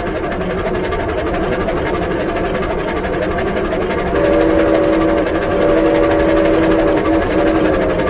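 Made-from-scratch cartoon-style steam locomotive sound effect: a fast, steady chugging. About four seconds in, a chime-like steam whistle of several notes at once blows for about three and a half seconds over the chugging.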